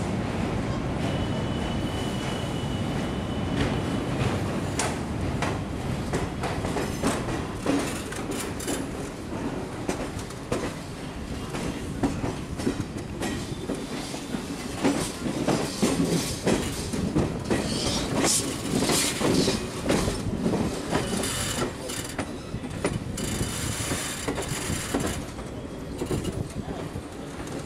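Indian Railways passenger coach rolling slowly over points and rail joints: a steady rumble with dense clattering knocks from the wheels, heaviest in the middle, and a high hissing squeal from the wheels on the curved crossover tracks toward the end.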